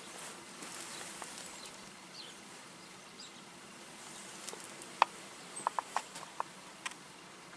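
A run of light clicks and clinks, like small parts or hand tools being handled, over a faint steady hiss: the loudest about five seconds in, then half a dozen quicker ones over the next two seconds.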